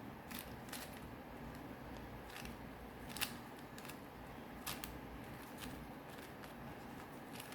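Plastic layers of a 4x4 Rubik's cube clicking as they are turned by hand: about eight separate sharp clicks at irregular intervals, the loudest about three seconds in.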